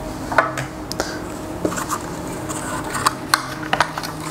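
Irregular light clicks and knocks of plastic and stainless steel kitchen parts being handled: a food-processor grating disc is set into a steel mixer jar and the clear plastic lid is picked up.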